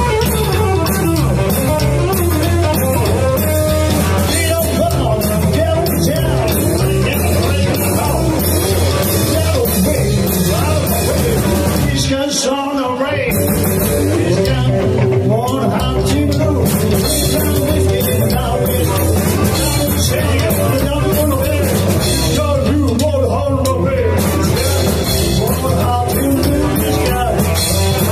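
Live rockabilly trio playing an up-tempo song on upright bass, hollow-body electric guitar and drum kit, with a brief break about twelve seconds in where the bass drops out.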